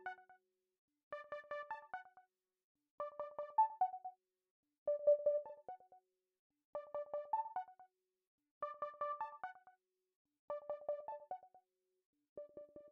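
Background music: a short phrase of quick pitched notes, about a second long, repeated about every two seconds with brief silences between.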